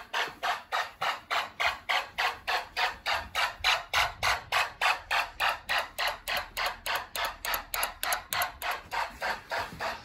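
Fire alarm horn strobe sounding in rapid, evenly spaced pulses, about four blasts a second, signalling that the alarm system is in alarm.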